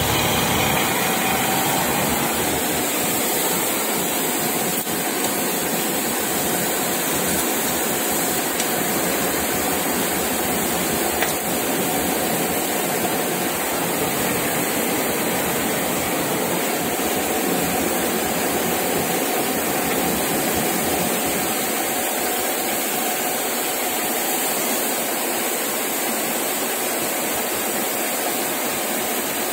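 Metal lathe running steadily as it turns a small metal valve cone for a high-pressure hand pump.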